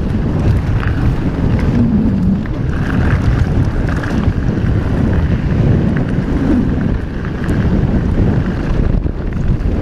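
Wind rushing over the handlebar camera's microphone as a mountain bike runs fast down a dry, gravelly dirt singletrack, with tyre noise on the loose stones and small clicks and rattles from the bike.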